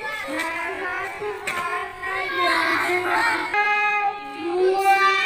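Children's voices calling out in a sing-song way, with a long steady held note in the second half.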